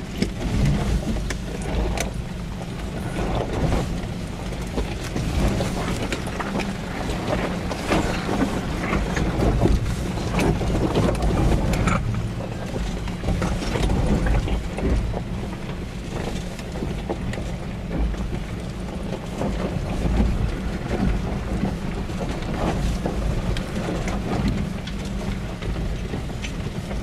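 Cab interior of a Nissan Patrol 4x4 crawling down a steep rocky off-road slope: the diesel engine running low and steady, with frequent knocks and rattles as the wheels and body work over the rocks.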